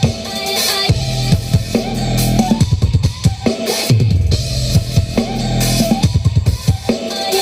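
Dance remix music with a pounding kick drum, snare and heavy bass, played loud through a miniature sound system with a 15-inch subwoofer during a sound check.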